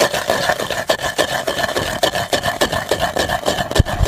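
Long wooden pestle grinding a coarse paste of almonds, poppy seeds, spices and sugar in a terracotta bowl: rapid, irregular rubbing and scraping strokes, several a second, with a couple of heavier knocks near the end.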